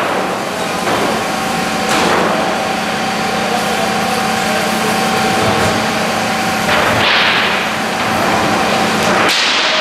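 An engine running steadily with a constant hum and whine, broken by several short bursts of hissing noise.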